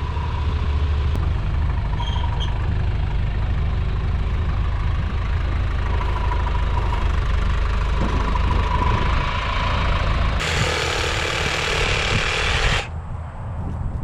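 Farm tractor engine running at idle with a steady low rumble. A loud hiss lasts about two seconds near the end.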